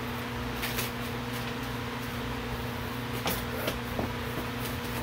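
Packing paper crinkling and rustling as it is pulled out of a cardboard box, in short irregular bursts, over a steady background hum.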